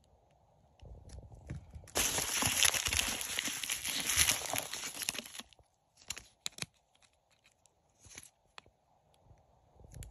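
Packing material and plastic packaging rustling and crinkling as items are pulled out of a box of foam packing peanuts and bubble wrap. About two seconds in comes a few seconds of loud, dense crinkling, and after it only a few short rustles and taps.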